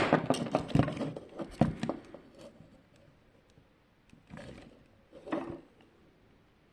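Plastic alarm clock parts being handled and taken apart: a quick run of clicks and knocks in the first two seconds, then two softer handling noises a few seconds later.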